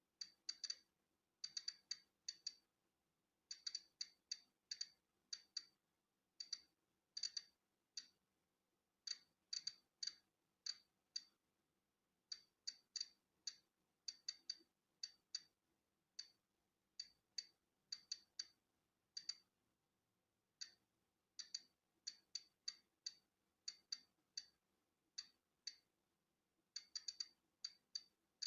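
Polon EKO-C digital Geiger counter clicking at random intervals, about two or three sharp high clicks a second with irregular gaps, each click a detected particle of natural background radiation.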